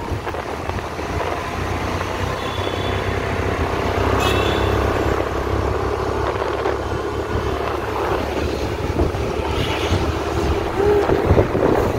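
Motorbike engine running as the bike moves along a street, with road noise and some wind on the microphone.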